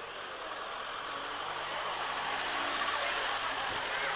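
Vintage 1930s Citroën saloon's engine running at low speed as the car rolls slowly by, growing gradually louder as it draws near.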